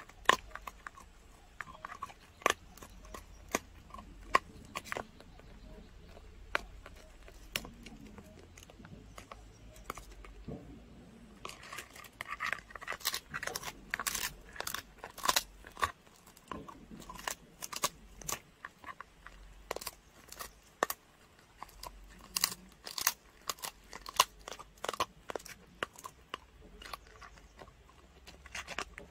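A dog chewing a dried pig ear treat, with sharp crunching clicks as its teeth bite into the hard ear. The clicks are scattered at first and come thick and fast from about halfway through.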